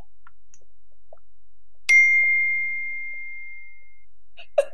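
A single electronic ding about two seconds in: one clear, high tone that rings out and fades over about two seconds. It is a video-call notification chime, sounding as participants leave the call.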